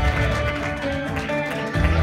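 Music with guitar and a strong bass line, playing for the dancers; the bass changes note at the start and again near the end.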